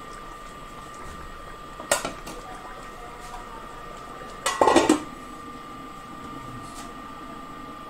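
A metal lid clatters onto a steel kadhai of mutton curry about halfway through, covering it to cook after water has been added. A single sharp knock sounds a couple of seconds earlier.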